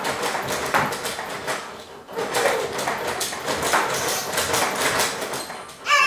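A baby's activity jumper rattling and clicking as the baby bounces in it, with a brief voice sound about two and a half seconds in.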